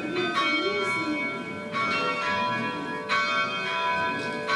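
Tower bells being rung by hand on ropes in change ringing. Four separate bell strikes land about a second and a half apart, and each one rings on into the next.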